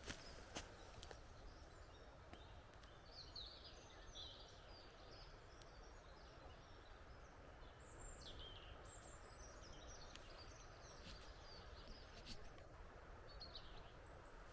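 Faint songs and calls of several wild birds in spring woodland: many short chirps and trills overlapping throughout, over a low background hiss.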